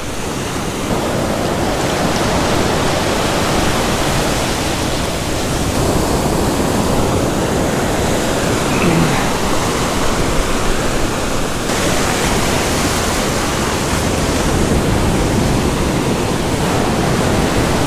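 Ocean surf washing in over the sand at the water's edge: a steady rush of breaking waves and foamy wash.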